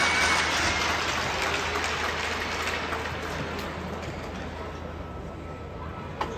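Arena crowd applauding, the clapping fading away over a few seconds, with a single sharp knock near the end.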